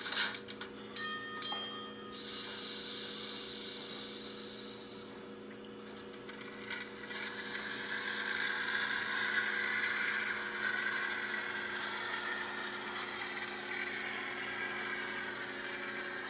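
Sound-equipped Bowser model Brill trolley running on the layout, its LokSound decoder playing trolley motor and running sounds through the model's small speaker over a steady low hum. A short ringing sound about a second in, and the running sound builds up from about six seconds in.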